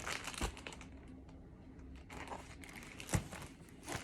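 A picture book's paper pages being handled and turned: faint rustling with a few sharp taps, the loudest about three seconds in.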